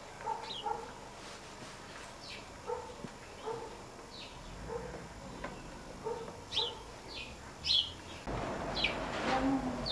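A dog barking faintly over and over, with short, high, falling bird chirps in between. A steady rushing noise comes in near the end.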